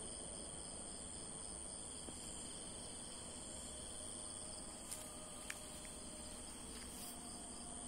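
Crickets chirping in a steady high-pitched trill, with a couple of faint clicks about five seconds in.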